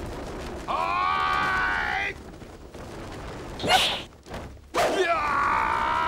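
Two long, held shouts from martial-arts fighters mid-leap, each about a second and a half, with a short sharp swish between them.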